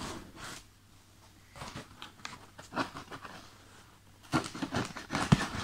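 Hands handling a cardboard shipping box: short scattered rustles and scrapes on the cardboard with quiet gaps between, and a cluster of louder scrapes and taps near the end.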